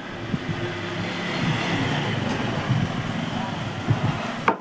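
Road vehicle passing, a steady noise that swells and fades, with one sharp click near the end.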